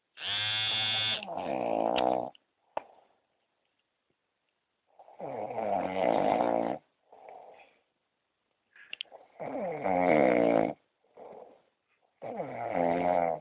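A man snoring: four long snores about every four seconds, each followed by a short, fainter breath.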